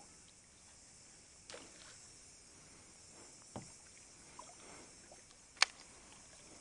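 Faint sounds of an angler in a kayak on still water: a low steady hush with a few soft knocks of gear against the hull, and one sharp click near the end.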